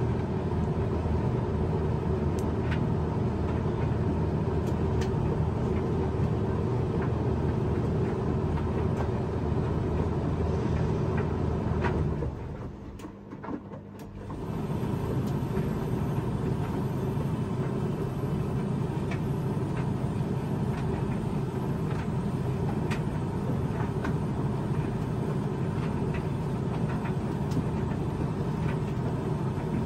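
Hoover tumble dryer drum running with a steady low rumble and hum, with faint scattered ticks. About twelve seconds in the drum stops for roughly two seconds, then starts turning again.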